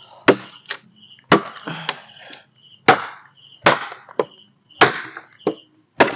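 A machete chopping a length of wet wood: about six hard chops roughly a second apart, several followed by lighter knocks.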